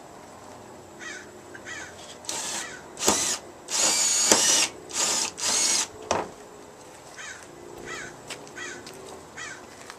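Power drill run in about five short whining bursts, a few seconds in, as fence panels are taken down. Crows caw repeatedly before and after.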